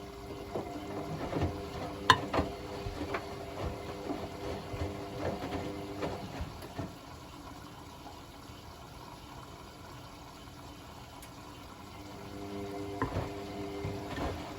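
Hotpoint WML540 washing machine in its wash phase: the motor turns the drum with a steady hum while water and laundry slosh and knock inside, stops after about five seconds, and after a pause of about six seconds starts turning again near the end.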